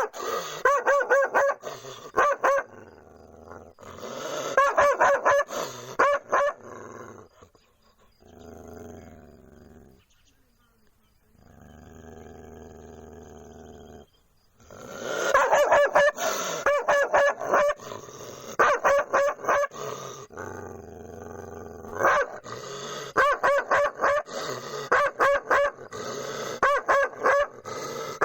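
German Shepherd barking in quick runs of several barks a second, in loud bursts with a quieter stretch in the middle.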